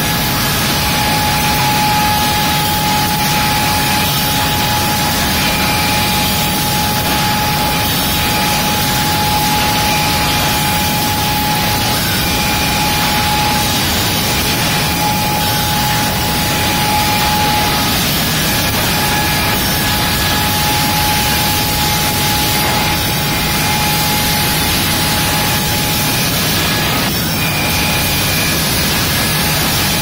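Sawmill production-line machinery running: a loud, steady din of electric motors, chain drives and board conveyors, with a steady whine over it.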